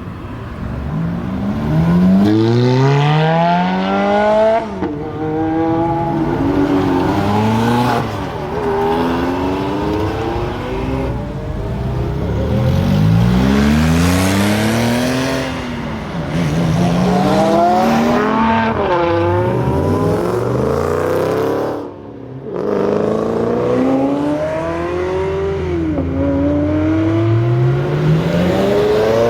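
Supercar engine accelerating hard, its pitch climbing over and over in long sweeps and dropping back each time, several times.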